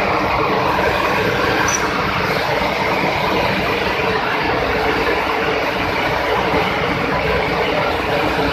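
Sesame seed cleaning machine running: a loud, steady mechanical din with a constant low hum, unchanging throughout.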